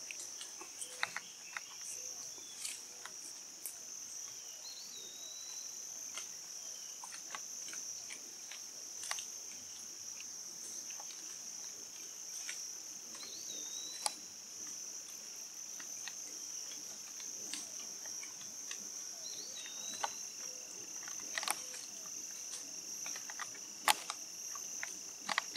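Steady high-pitched chorus of late-summer insects in the woods, with scattered sharp ticks and snaps and a few short rising chirps.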